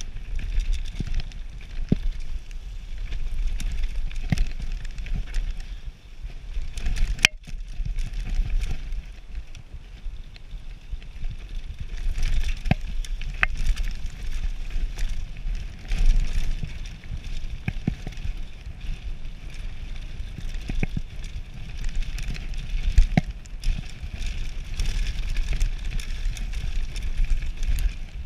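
Radon Slide Carbon enduro mountain bike descending a rough dirt trail at speed: tyre noise on dirt and loose stones, with frequent sharp clicks and knocks as the bike rattles over bumps. Heavy wind rumble on the microphone.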